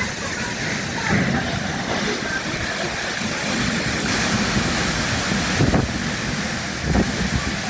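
Hurricane wind blowing steadily, with gusts buffeting the phone's microphone near the end.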